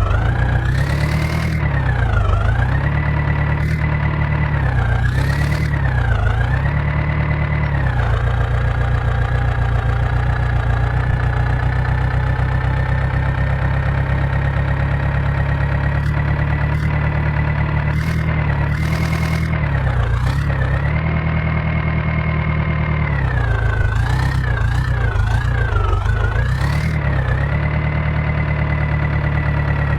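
Diesel engine running, its speed repeatedly dipping and picking back up as load comes on and off in the first few seconds and again later, with a steady stretch in between.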